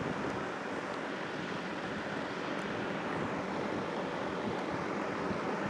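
Steady rushing background noise with a few faint, light ticks.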